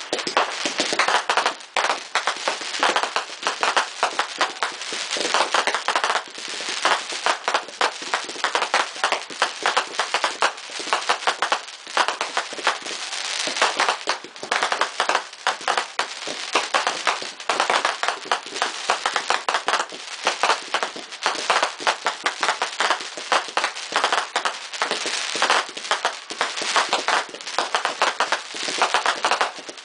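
Fireworks display: a continuous barrage of sharp bangs and crackles from bursting shells, many reports a second with no pause.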